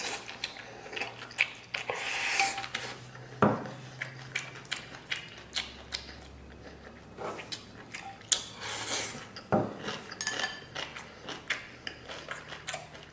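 Close-up eating sounds: chopsticks clicking and scraping against a stainless-steel rice bowl and metal pot, with chewing in between. Two sharper knocks stand out, one a few seconds in and one near the middle.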